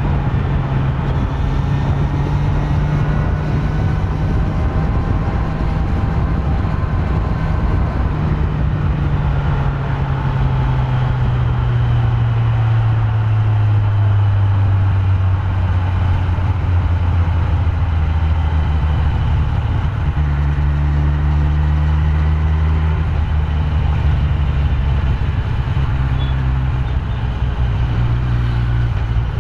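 Stock Kawasaki Z900 inline-four engine running under way. Its note slowly drops over the first half, stays low, then steps up in pitch about two-thirds of the way through.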